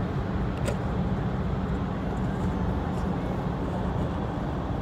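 Steady low rumble of road and engine noise heard inside the cabin of a vehicle moving at highway speed.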